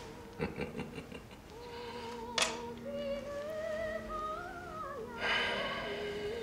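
Background music score: a slow melody of held notes that slide up and down in pitch, with a sharp click about two and a half seconds in.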